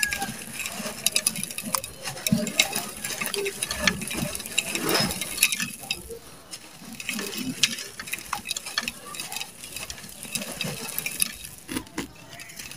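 Dry red sand-cement crumbled by hand, its grit pouring into a clay pot: a steady gritty crunching with many small crackles and patters of falling grains.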